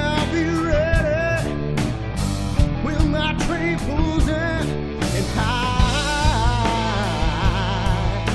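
A rock band playing a blues-rock song: electric guitar bending and wavering notes over drums keeping a steady beat.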